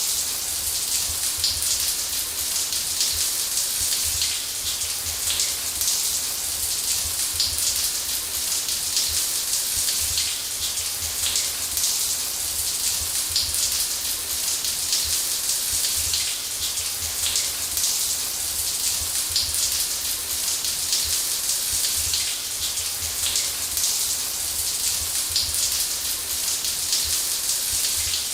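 Shower spray running steadily, water falling in a dense hiss of patter onto a hard surface.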